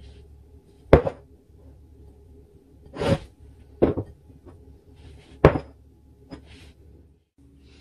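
About five sharp, irregularly spaced knocks and clinks of kitchenware being handled on a worktop, the loudest about a second in, over a faint steady hum.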